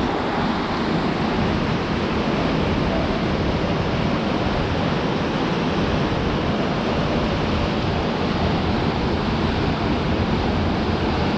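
Steady rushing of a waterfall, an even wash of water noise that does not let up.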